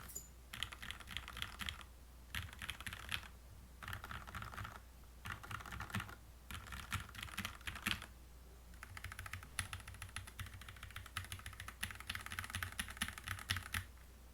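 Typing on a HolyTom TM680 hot-swap mechanical keyboard with lubed Gateron Milky Black linear switches. Quick keystrokes come in short bursts with brief pauses between them, then a longer run of typing stops near the end.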